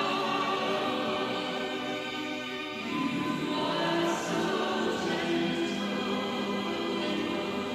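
A choir singing slow, sustained chords as the closing music.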